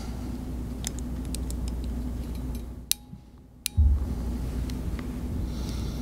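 A few light, sharp metallic clicks of a ratcheting crimp tool being handled and fitted over a BNC connector's ferrule, over a steady low hum. The background drops out briefly about halfway through.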